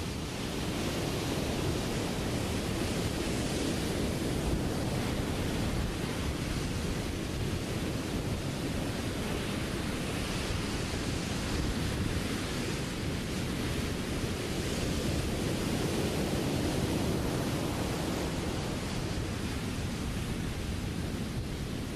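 Ocean waves breaking and surf washing in, a steady rushing noise that swells and eases every few seconds.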